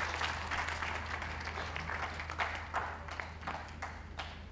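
Audience applauding, many hands clapping at once, the applause thinning and dying away toward the end.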